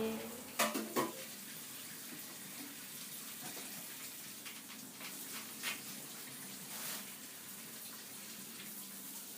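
Water running steadily, like a tap into a sink, with two sharp knocks near the start and a few fainter clicks later.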